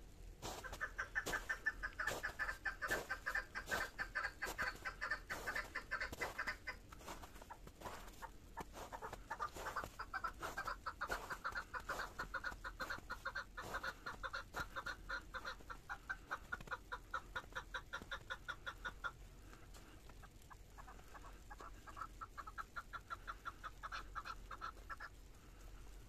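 A bird calling in long runs of rapid clucking notes, about five a second, with short breaks about seven and nineteen seconds in.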